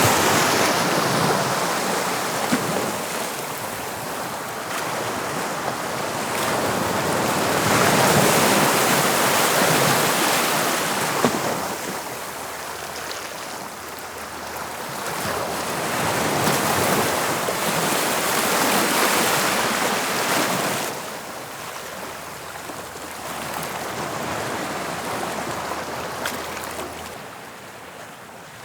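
Sea waves breaking and washing on the shore, the surf rising and falling in slow surges every several seconds, with some wind on the microphone.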